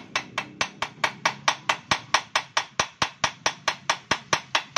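Rapid, even hammer taps on metal, about five a second, knocking a stuck rear-axle bracket on a scooter loose.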